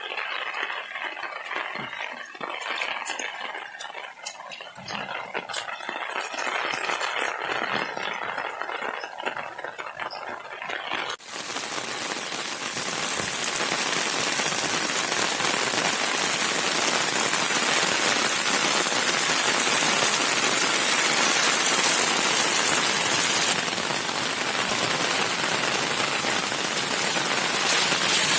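Heavy monsoon rain falling. About eleven seconds in, the sound changes abruptly to a louder, denser, steady hiss of downpour.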